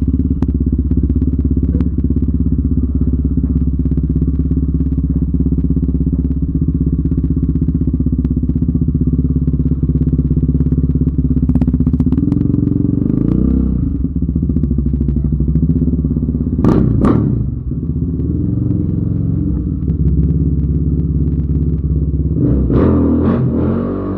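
Yamaha Raptor 700R ATV's single-cylinder four-stroke engine running steadily at low speed, with a brief change in revs about halfway through. Knocks and clatter from the ride come through, including a pair of sharp hits about two-thirds of the way in and more near the end.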